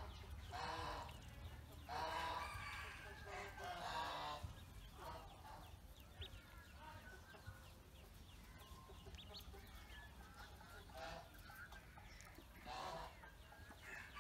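Ducklings peeping in thin, high chirps. Several louder, lower fowl calls sound in the first few seconds and once more near the end.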